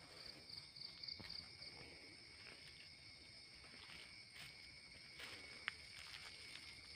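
Faint night insect chorus: crickets trilling steadily at a high pitch, with a pulsing trill in the first second or so and a few soft clicks.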